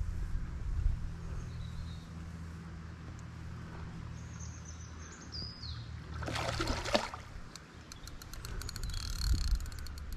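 A small hooked barbel splashing at the surface in a brief burst about six seconds in, over a steady low rumble. A bird chirps shortly before, and a run of fast ticks follows near the end.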